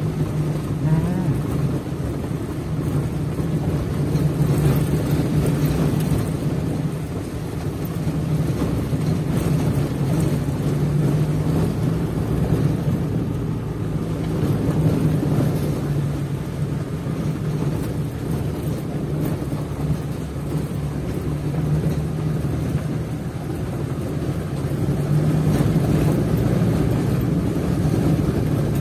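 Engine of a moving vehicle running steadily at cruising speed, with road and wind noise, swelling and easing slightly as it goes.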